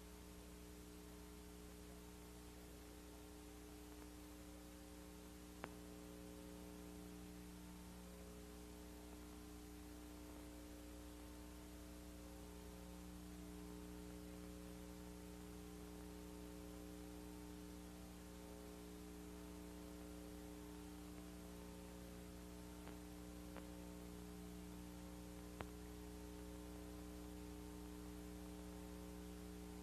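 Near silence: a steady electrical mains hum and faint hiss, with a couple of faint single clicks.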